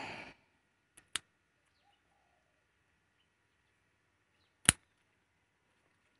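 A few sharp clicks or snaps: a quiet pair about a second in and a louder single one a little past four and a half seconds.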